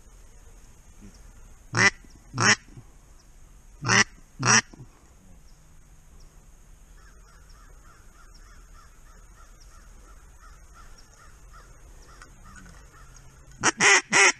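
Duck call blown in the blind: two pairs of loud quacks about two and four seconds in, then near the end a fast run of quacks like a hen mallard's greeting call.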